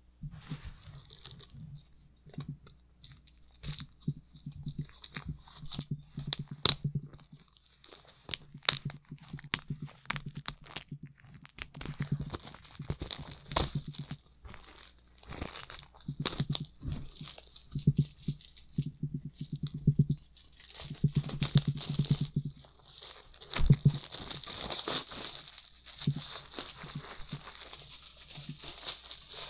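Plastic shrink-wrap crinkling and tearing as it is worked off a large hardcover book, with many sharp crackles and the knocks and rubs of hands handling the book. The crinkling grows denser in the last few seconds.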